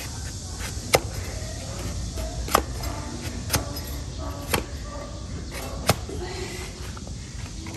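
Sharp snapping clicks from hoof-trimming tools cutting a donkey's hoof, five of them about a second apart, over a steady low background hum.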